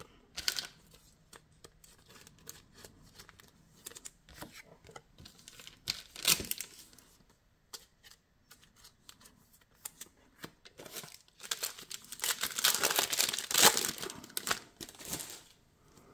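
Trading cards being handled and shifted in the hands, with scattered light flicks and rustles. About eleven seconds in, a card pack's plastic wrapper crinkles and tears open for about four seconds; this is the loudest part.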